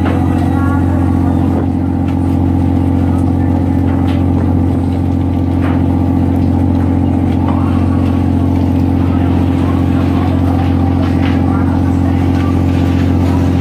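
Crab boat's engine and deck machinery running as a steady low drone, with a few short knocks from the gear on the steel deck.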